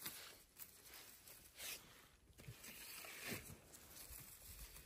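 Faint footsteps and rustling on the forest floor: a few soft swishes and low thumps.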